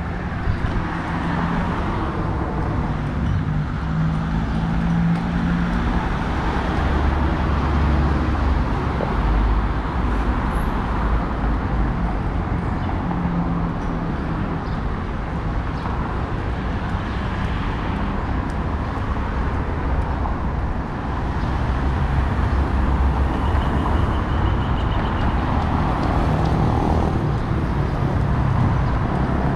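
City street traffic: cars driving past with their engines and tyre noise, a steady rumble that swells as vehicles go by.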